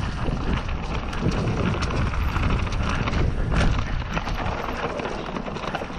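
Mountain bike ridden fast down a dirt woodland trail: a steady rush of tyre noise and wind rumble on the microphone, with many small clicks and rattles from the bike over the rough ground.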